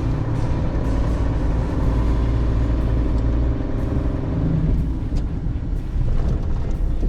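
Large truck's diesel engine running, heard from inside the cab as a steady, heavy low rumble.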